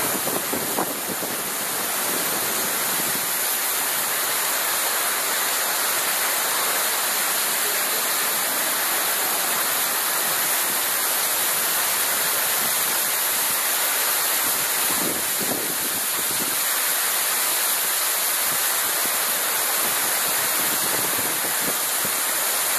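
Heavy downpour of rain pouring down and splashing on a concrete floor, a steady hiss of falling water.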